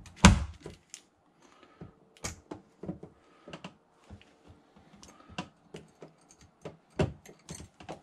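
Irregular light metallic clicks and taps as a chrome overflow trim cover is fitted and screwed onto a bathtub's drain overflow, with one sharper knock about a quarter second in.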